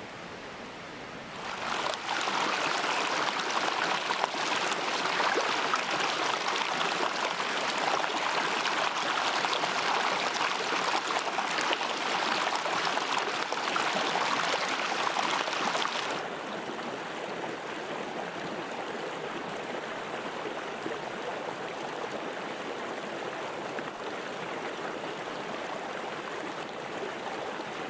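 Mountain stream running: a steady rush of water that steps up in loudness about a second and a half in and drops back to a softer flow about halfway through.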